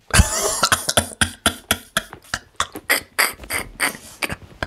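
A man laughing hard: a long run of breathy bursts, several a second, with voiced laughter at the start.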